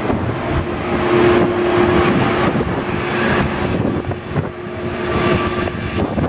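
Boeing 767-300's twin jet engines at taxi power: a steady whine over a rushing hum, with wind buffeting the microphone.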